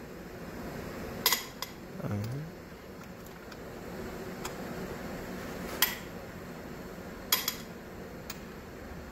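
Sharp metallic clinks of a ratchet and socket against a cylinder head's bolts as they are worked loose, about five scattered clinks over a steady low background noise.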